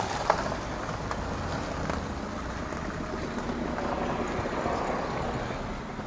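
Wind buffeting a handheld phone's microphone outdoors, a steady rumbling rush with handling noise, and one sharp knock a moment in.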